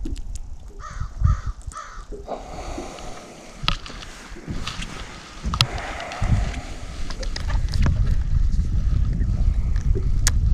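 A crow cawing, three quick caws about a second in. Low wind rumble on the microphone builds through the rest, with a few sharp clicks.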